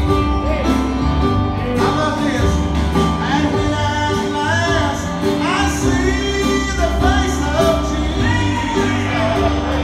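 A man singing a gospel song, accompanied by piano and bass guitar.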